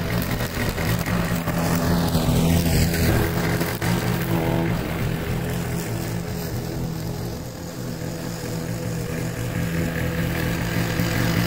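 Single-cylinder Briggs & Stratton engine on a walk-behind rotary lawn mower running steadily under load while cutting grass. It grows quieter for a few seconds in the middle as the mower moves away, then louder again near the end.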